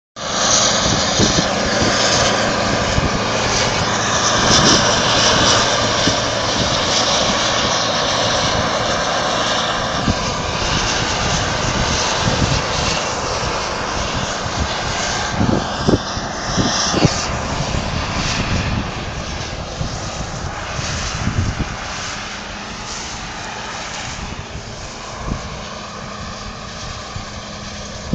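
John Deere 9770 combine harvester running steadily while harvesting wheat: a diesel engine drone mixed with the whir of its machinery, with a few knocks around the middle and the sound getting somewhat quieter over the last several seconds.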